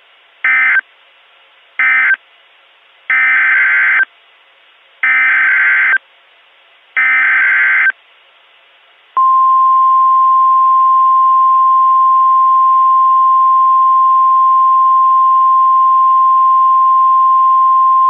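Emergency Alert System signalling: two short bursts of SAME digital data screech, typical of an end-of-message code, then three longer one-second SAME header bursts. About nine seconds in, the single steady 1050 Hz NOAA Weather Radio alert tone starts and holds.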